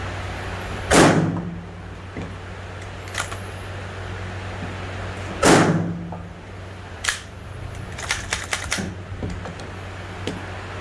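Gunfire at an outdoor shooting range: two loud single shots about four and a half seconds apart, then a quick string of fainter shots near the end, over a steady low hum.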